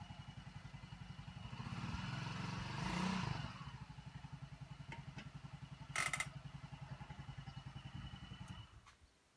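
Hunter 200cc buggy engine idling with an even putter, rising briefly about two to three seconds in. A sharp click comes about six seconds in, and the engine stops near the end.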